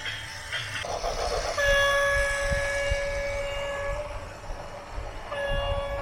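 A loud multi-tone horn sounding two long blasts, the second starting about five seconds in and still going at the end, over a heavy low rumble.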